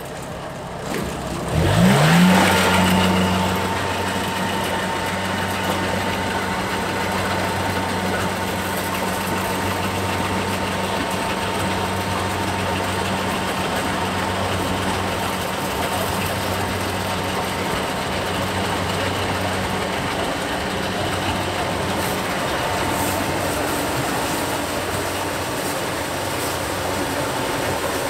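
A Kubota DC70 rice combine harvester's engine revs up briefly about two seconds in, then runs at a steady speed.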